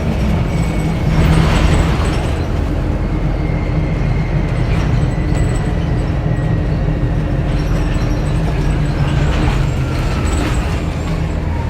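Orion VII Next Generation hybrid bus heard from inside while driving: the Cummins ISB diesel engine hums steadily, and the BAE Systems HybriDrive electric drive's whine slowly falls in pitch, dropping faster near the end.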